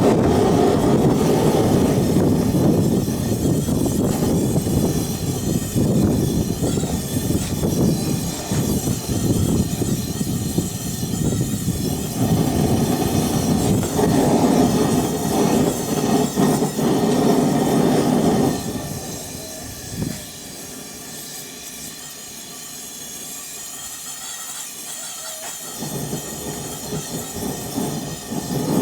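Single-burner propane gas forge running with a steady rushing burner noise during a curing firing of its freshly applied Satanite lining. About two-thirds of the way through the noise drops away sharply, a single click follows, and it slowly builds back near the end.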